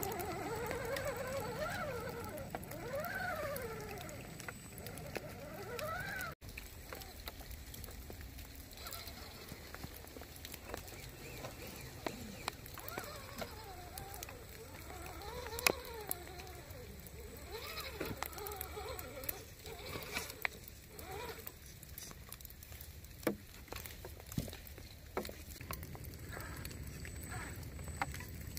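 Electric motor and gear drivetrain of a scale RC rock crawler whining, rising and falling in pitch with the throttle as it crawls over rock, with scattered sharp clicks and knocks of tyres and chassis on the wet rocks; the loudest knock comes about halfway through.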